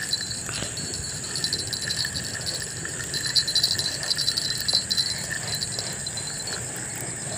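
Night insects: crickets chirping in rapid pulsing trills over a steady high-pitched insect drone.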